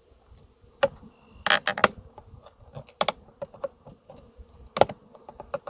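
Honeybees from a shipped package buzzing with a faint steady hum, under a series of sharp knocks and rattling clatters from handling. The loudest clatter comes about a second and a half in and another near the end.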